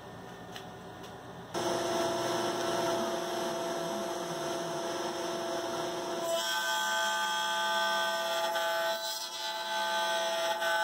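For about a second and a half there is only a low hum. Then a CNC router spindle comes in with a steady high whine as its 1/2-inch ball-nose bit carves a Douglas fir blank turning on a rotary axis. The mix of whining tones changes about six seconds in.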